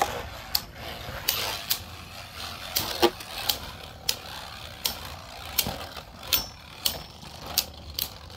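Two Beyblade Burst spinning tops, one of them Divine Belial, whirring in a plastic stadium. They clack together in a run of sharp, irregular clicks about every half second as they collide.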